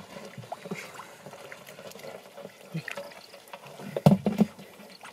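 Small splashes and squelches of hands and fish moving in shallow muddy water. About four seconds in, a short cluster of louder knocks comes as a fish goes into a plastic jerry can.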